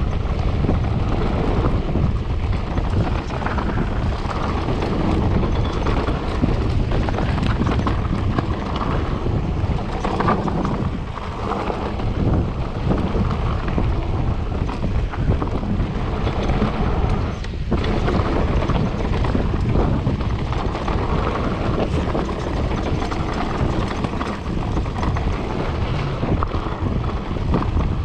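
Mountain bike riding fast down a rough trail: wind buffeting the microphone over the rumble and rattle of the tyres and bike on the ground.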